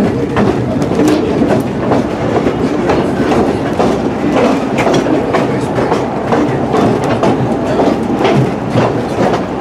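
Two-foot narrow-gauge passenger car rolling along the track with a steady rumble, its wheels clicking irregularly over the rail joints, heard from aboard the moving car.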